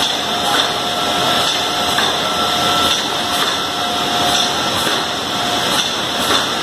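Lollipop depositing production line running: a steady machine din with a faint steady whine in it and occasional light clicks.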